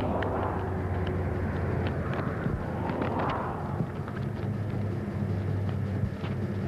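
A steady low engine hum with the whoosh of vehicles passing now and then, a few light clicks and rustles over it.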